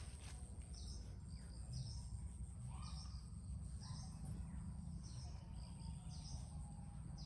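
A bird calling over and over, a short high note about once a second, over a steady low rumble and a thin, steady high whine.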